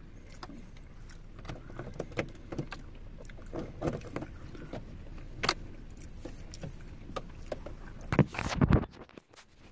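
Scattered small clicks and rustles of handling, with a cluster of louder bumps about eight seconds in as the recording phone is moved.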